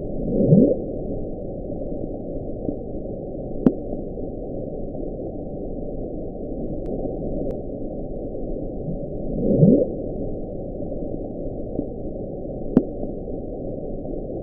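Hydrophone recording of the 1997 'Bloop': a steady muffled underwater hiss with a short rising sweep twice, about nine seconds apart, and a couple of faint clicks.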